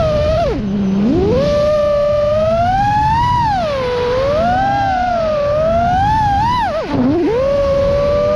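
FPV freestyle quadcopter's brushless motors whining loudly, the pitch rising and falling constantly with the throttle. Twice, about a second in and again near the end, the whine drops sharply to a low hum as the throttle is chopped, then climbs back up.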